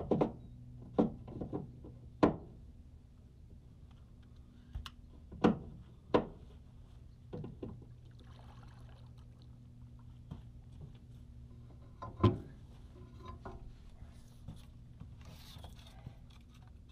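Several sharp, irregular knocks and thumps on a welded aluminum fishing boat as an angler moves about playing a sturgeon beside the hull, over a low steady hum.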